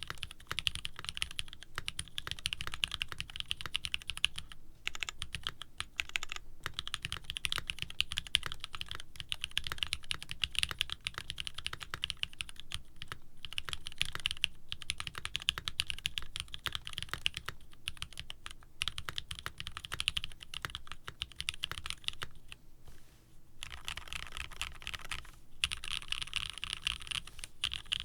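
Mechanical keyboard being typed on in fast, continuous runs of key clacks with a few brief pauses. The keyboard uses retooled Cherry switch housings with Kailh stems, mounted on an aluminium plate, with CRP keycaps.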